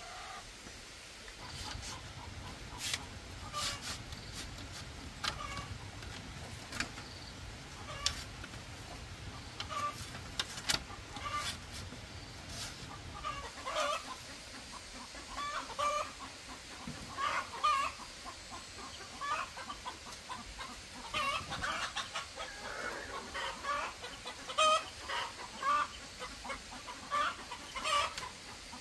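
Chickens clucking: many short calls, more frequent in the second half. Sharp clicks and a low rumble run under the first half.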